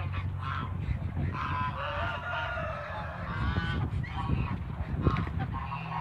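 Domestic geese honking, a run of repeated calls starting about a second in and coming again on and off toward the end, over a low rumble.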